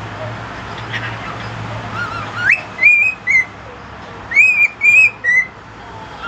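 Cockatiel whistling: a rising note, then two short phrases of two or three clear whistled notes.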